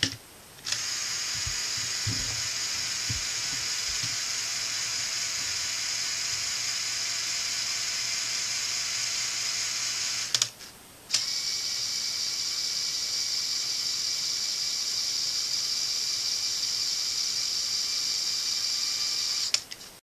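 LEGO Technic Power Functions electric motors running the model's four-wheel-drive gear train, a steady high whine of motors and meshing plastic gears. It stops briefly about ten seconds in and starts again.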